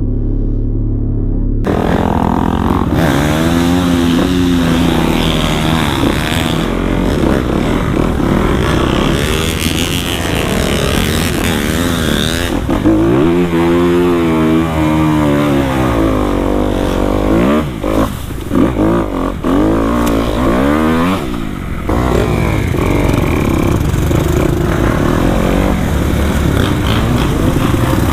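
Dirt bike engine ridden hard on a muddy trail, revving up and down so that its pitch rises and falls again and again. For the first second or two a steadier, lower engine hum is heard instead.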